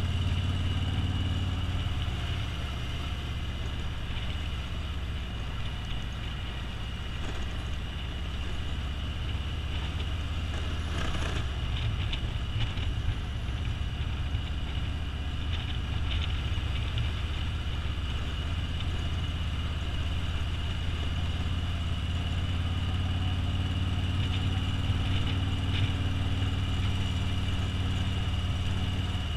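Motorcycle engine running steadily under way, with wind and road noise rushing over the bike. A brief louder rush of noise comes about eleven seconds in.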